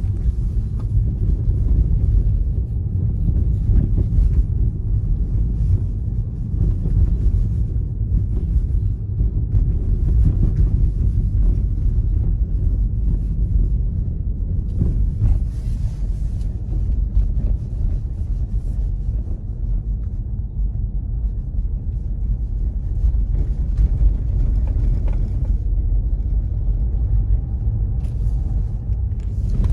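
Steady low rumble of tyre and road noise from a Tesla Model 3 driving on snow-packed road, heard inside the cabin.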